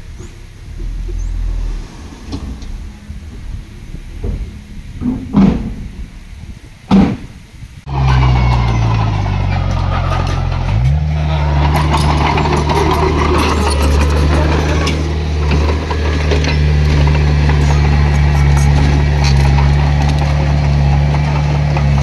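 Heavy diesel engine of construction machinery running steadily and loud, coming in abruptly about eight seconds in, with its pitch shifting briefly a few seconds later. Before it, quieter rumbling broken by two loud thumps.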